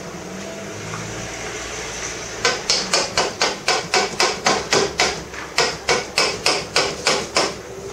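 Rapid, even knocks, about four a second, from the metal beaters of a hand mixer being rapped against a stainless steel mixing bowl to shake off cake batter. They start a couple of seconds in, pause briefly in the middle, and stop just before the end.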